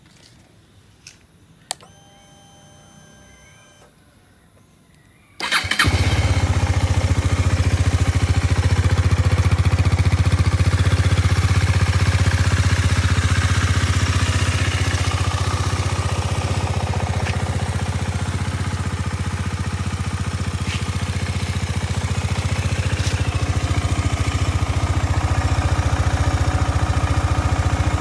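A KTM Duke 250's single-cylinder engine starts about five seconds in and settles into a steady idle. Before it starts there are a couple of faint clicks and a short hum.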